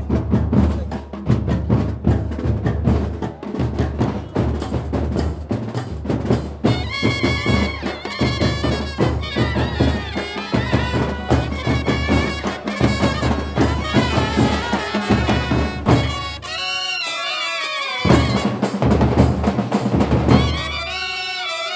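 Festival music of drums played in dense, fast strokes, joined by a wavering, oboe- or horn-like wind melody. Near the end, twice, the drums drop out and the wind melody carries on alone.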